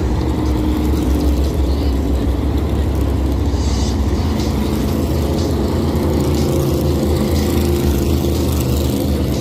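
NASCAR Cup Series stock cars' V8 engines running at race speed as the cars pass the grandstand, a loud, steady sound with no break.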